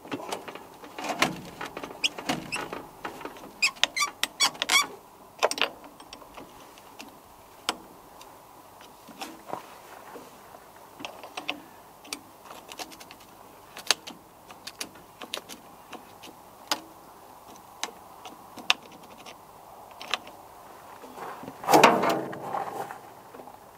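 Hand tools working on battery cable nuts: a ratchet spanner clicking in quick runs and metal clinking on the fittings. Near the end there is one louder squeaking scrape.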